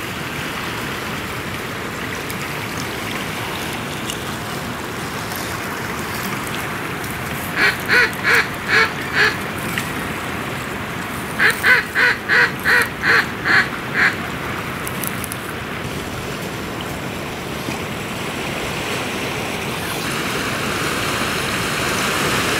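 Two runs of loud, evenly spaced duck quacks, five and then about eight, roughly three a second, over a steady rush of wind and waves.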